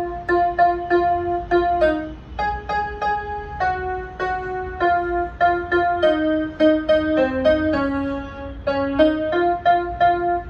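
Casio electronic keyboard played in a piano sound: a simple right-hand melody of single notes, about two or three a second, with some notes repeated.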